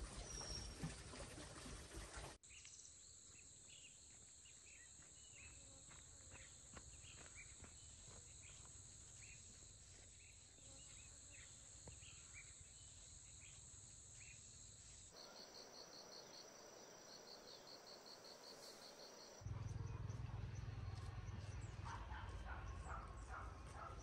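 Faint rural ambience of insects and birds: a steady high insect drone with scattered bird chirps, then a fast, pulsing insect chirp. Near the end a louder low hum joins, with more bird chirps.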